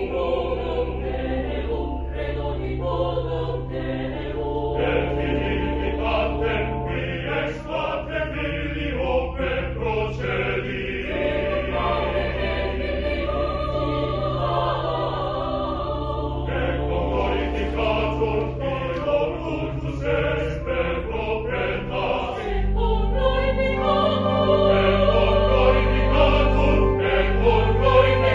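Mixed choir singing, with moving upper parts over a steady low held note. About 22 seconds in, the low part shifts and the singing swells louder.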